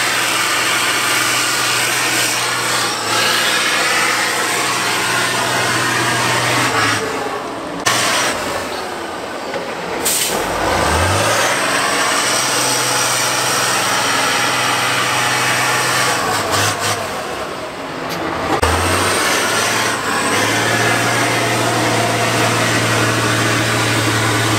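Heavy diesel engine of a six-wheeled trial truck working hard in deep mud. Its revs sag and climb back twice.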